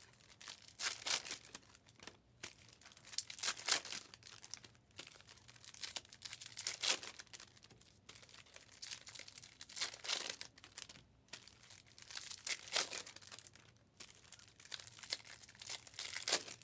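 Trading card pack wrappers being torn open and crinkled by hand, in irregular crackling bursts about every second or two.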